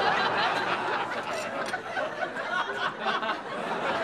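Studio audience laughing and chuckling over a murmur of diners, with a few light clicks about a third of the way through.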